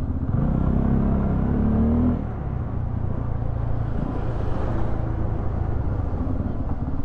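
Bajaj Pulsar F250's single-cylinder engine under way: the engine note climbs under throttle for about two seconds, then drops back and runs on steadily.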